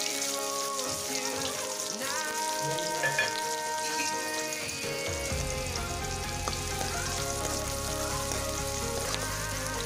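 Chopped onion and green chilli sizzling in hot oil in a kadhai, stirred with a spoon in the second half, over soft background music.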